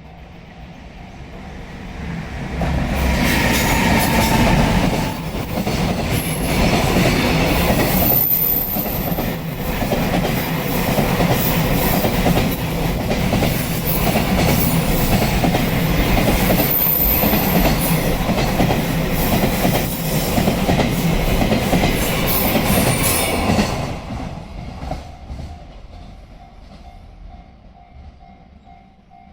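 A train passing over a level crossing. It rises to full loudness within the first few seconds, its wheels clatter over the rail joints for about twenty seconds, then it fades away. The crossing's warning bell rings in a rapid steady repeat before the train arrives and again after it has passed.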